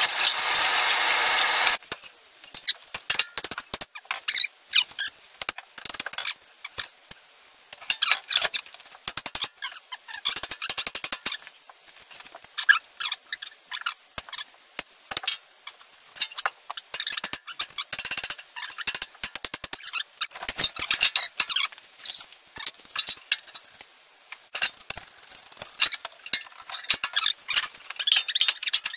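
A loud rushing noise that cuts off about two seconds in, then a long run of irregular clicks, knocks and squeaks from hand work on the bandsaw's mobile base as it is taken apart and fitted.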